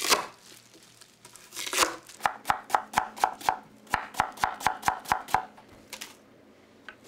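Kitchen knife chopping on a cutting board in a quick, even run of strokes, pausing briefly partway through and ending with a few scattered cuts.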